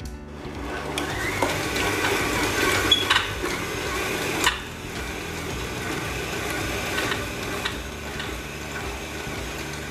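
Electric mixer starting up about a second in and running steadily as it works a stiff bread dough, with a few knocks against the bowl near the middle.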